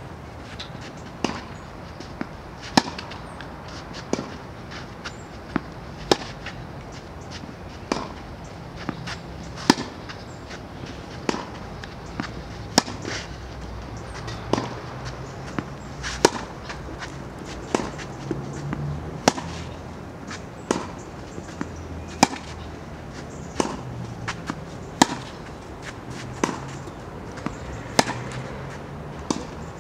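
Tennis balls struck by rackets in a steady rally: a sharp hit about every one and a half seconds, with fainter knocks in between.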